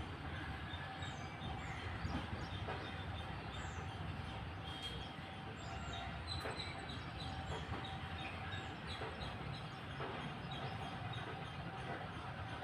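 Squirrel chirping: a rapid run of short, high, downward-sliding chirps, over a steady low rumble of background noise.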